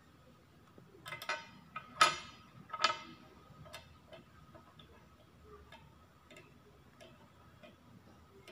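Small plastic toy parts clicking and clattering in the hand as a miniature telescope is fitted onto its tripod stand, in three quick bursts about one to three seconds in. After them comes a faint, regular ticking about one and a half times a second.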